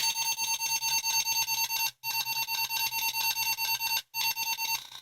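Atari 8-bit computer's boot sound as it starts loading from the 1050 disk drive: a rapidly pulsing electronic buzz-tone in three runs, with brief breaks about two and four seconds in, stopping shortly before the end.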